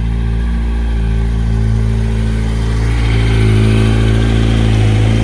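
Yamaha R1's inline-four engine idling steadily and evenly, a little louder about three seconds in. It sounds great, with no knock after the repair.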